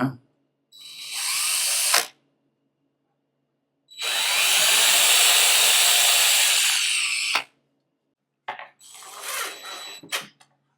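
Power drill driving short screws into a quarter-inch wooden board: a short run about a second in, a longer steady run in the middle, then a few brief bursts near the end.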